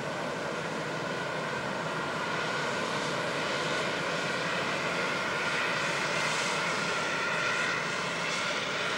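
Airbus A320-214's CFM56 jet engines running as the airliner rolls along the runway after touchdown. The sound is a steady rushing noise with a high whine, growing a little louder about two seconds in.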